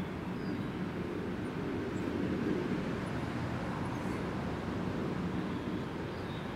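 Steady low rumble of distant road traffic, with no sound from the squirrel itself.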